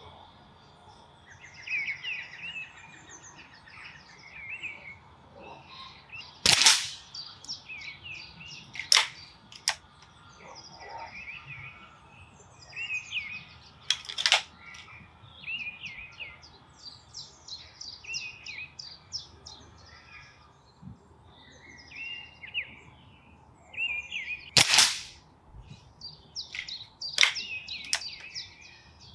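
BSA GRT Lightning XL SE gas-ram break-barrel air rifle in .177 firing three shots, each a sharp crack, about 7, 14 and 25 seconds in, with fainter clicks between shots. Songbirds chirp throughout.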